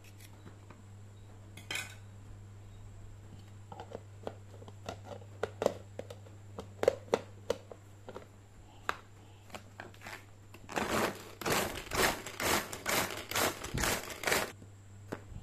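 Manual pull-cord mini food chopper at work: about ten quick pulls of the cord near the end, each a short whirring rattle of the blades spinning through shallots, garlic, belacan and red chilli. Before that, scattered small clicks and knocks as chilli is cut into the plastic bowl and the lid is fitted.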